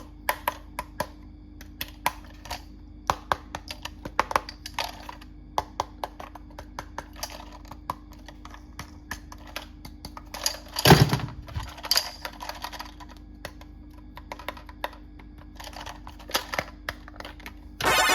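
Plastic toys and packaging being handled: irregular light clicks and taps, with a louder thump about eleven seconds in and a quick run of clicks near the end.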